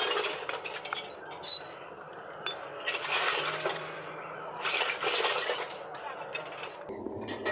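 Damp moulding sand being packed in a steel moulding box: a steel rod jabs into the sand and clinks against the box, then hands scrape and pat the sand in several short gritty bursts.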